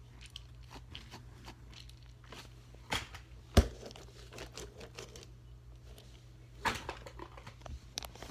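Small objects being handled: scattered light clicks and taps, with a sharp knock about three and a half seconds in and another near seven seconds, over a steady low hum.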